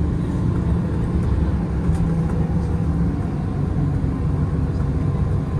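Inside a 2022 Nova Bus LFS city bus under way: a steady low hum from the engine and drivetrain, mixed with road and tyre noise.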